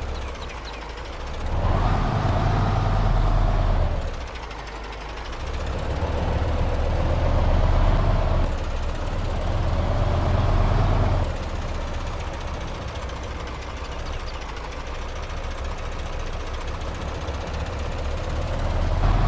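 A radio-controlled heavy-machine model running with an engine-like rumble, rising in three loud surges in the first half and then settling to a steady idle.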